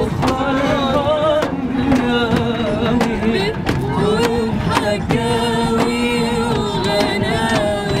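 A woman singing an Egyptian song in Arabic, unaccompanied but for sharp beats, with long wavering held notes.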